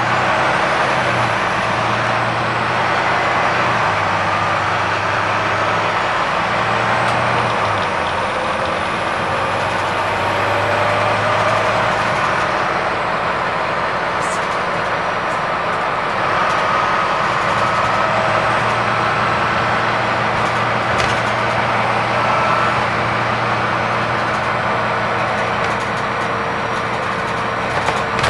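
Volvo B9TL double-decker bus running on the road, heard from inside the upper deck: its Euro 4 six-cylinder diesel engine under dense road and cabin noise. The low engine note shifts in steps several times in the first twelve seconds, then holds steady, and a short knock comes near the end.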